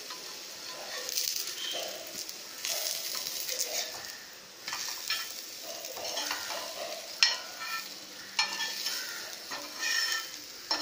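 Ragi rottis sizzling and crackling in a little oil on a hot griddle after being flipped. The sizzle flares up now and then, with one sharp click about seven seconds in.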